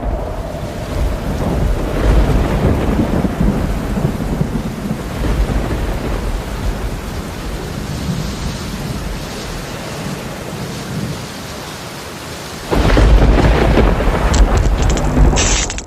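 Rain with low rumbling thunder; the rumble jumps suddenly louder about 13 seconds in and cuts off abruptly at the end.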